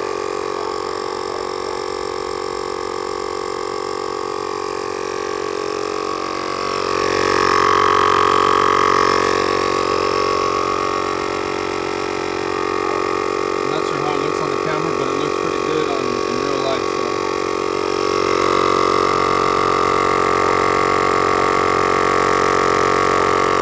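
Husky portable tire inflator's compressor running steadily while topping up a car tire that is already near full pressure. Its hum gets louder about seven seconds in and again near the end.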